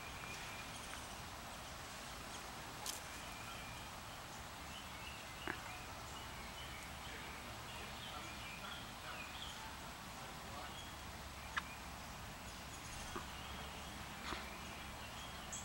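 Outdoor background ambience: a steady low hiss with faint scattered chirping and a few sharp clicks spread through it.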